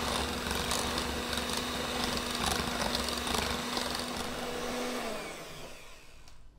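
Electric hand mixer running steadily, its twin beaters whipping mayonnaise in a bowl; a little after five seconds in it is switched off and the motor's pitch falls as it winds down.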